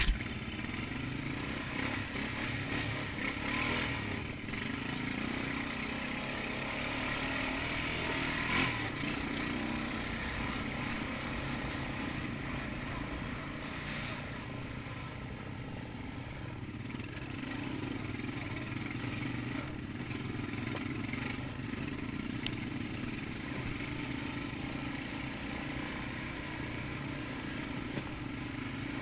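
ATV engine running steadily under way on a rough, muddy trail, with a few knocks and clatter from the machine going over the ruts and rocks.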